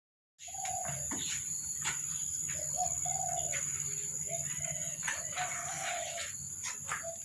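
Doves cooing: a long run of short, low notes repeating over and over, with a steady high-pitched whine and scattered clicks underneath.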